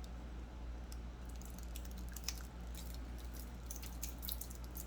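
Light, irregular clicks and taps of a wristwatch and its bracelet being handled, over a steady low hum.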